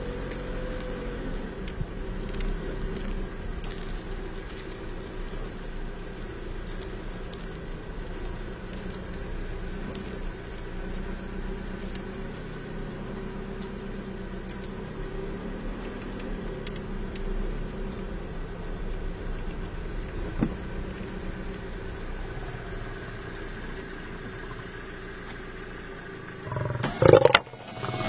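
Car engine running steadily, a low hum heard from inside the vehicle. About a second before the end there is a brief, much louder burst.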